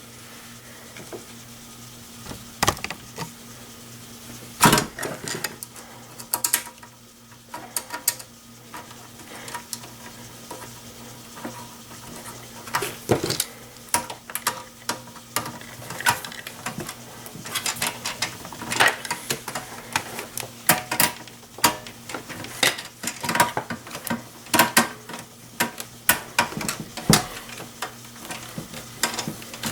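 Irregular small clicks, taps and knocks of a hard drive and metal parts being handled inside a desktop PC case, growing more frequent in the second half, over a steady low hum.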